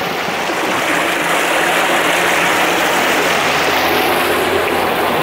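Water rushing and churning in the wake of a sailboat driven by a homemade electric outboard at full 48-volt power; the water makes most of the noise. A faint steady hum lies underneath.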